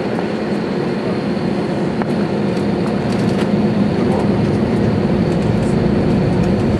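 Airbus A320-200 cabin noise while taxiing: the jet engines' steady hum with a faint high whine, heard from inside the cabin, slowly getting louder.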